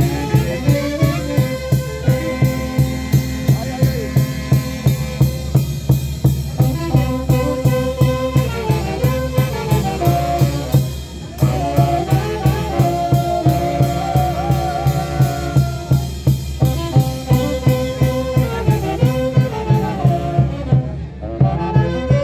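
Live brass band with drums playing a festive dance tune, the drum keeping a steady beat of about two a second. The band breaks off for a moment about halfway through, then starts again.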